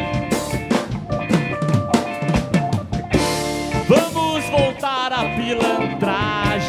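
Live band playing an instrumental passage: drum kit with snare strokes, electric guitar, bass and keyboard. A cymbal crash comes about three seconds in, followed by a wavering high melody line.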